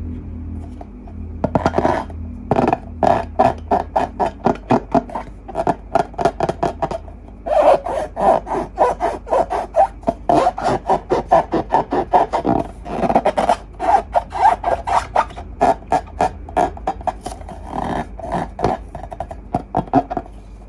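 Glossy slime being squeezed and worked by hand, giving a quick run of sticky clicks and pops several times a second. It starts about a second and a half in, with a short pause around seven seconds.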